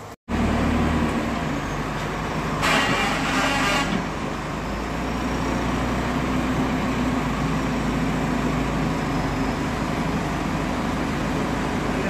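Diesel engine of a JCB backhoe loader running steadily, with a brief hiss about three seconds in.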